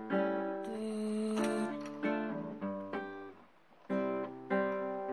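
Background music: a guitar strumming chords in a steady rhythm, with a short pause a little after three seconds in.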